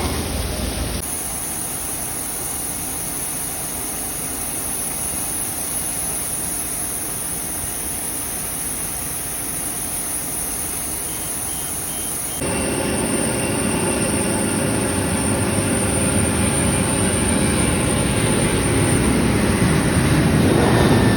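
Boeing 737 MAX 8's CFM LEAP-1B jet engines running, a steady rushing noise. About twelve seconds in it jumps louder, with a faint whine, and keeps building toward the end.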